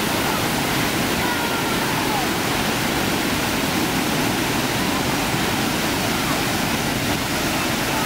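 Waterfall in heavy, muddy flow: a steady, loud rush of water pouring over the ledge and churning into the pool below.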